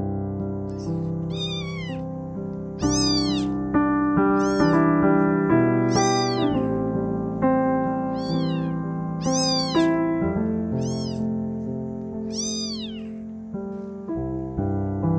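Newborn kitten mewing repeatedly: about seven short, high-pitched mews, each rising then falling in pitch, over soft piano music.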